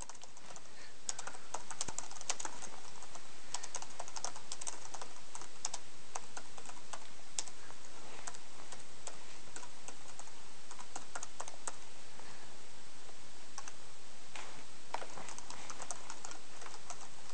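Typing on a laptop keyboard: irregular key clicks in quick runs over a faint steady hiss, fading in over the first second or two.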